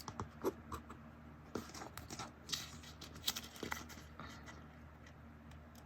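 Paper and tape being handled by hand: scattered soft taps and small rustles as a strip of tape is pressed along a paper page.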